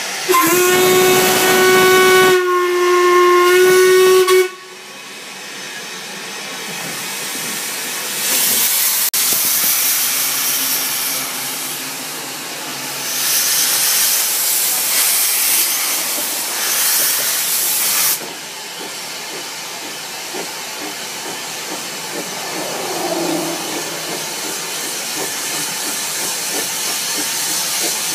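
Narrow-gauge steam locomotive's whistle blowing two blasts of about two seconds each, followed by several bursts of steam hissing.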